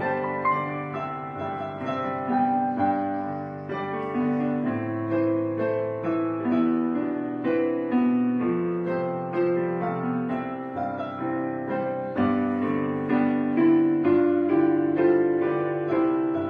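Background piano music: a slow melody of struck notes over lower chords, each note starting sharply and fading out.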